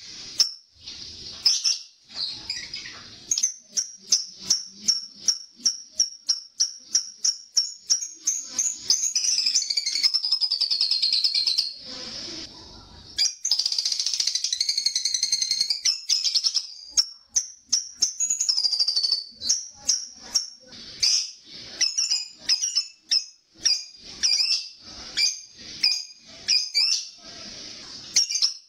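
Lovebird chattering in shrill, high chirps: first a run of sharp chirps at about three a second, then two long unbroken rapid trills a few seconds long each, then scattered chirps again. This is the lovebird's 'ngekek', its long continuous chattering song.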